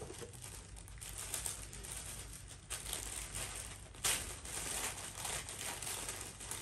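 Tissue paper and packaging rustling and crinkling in irregular bursts as hands unwrap a clothing gift box, with a sharper, louder crinkle about four seconds in.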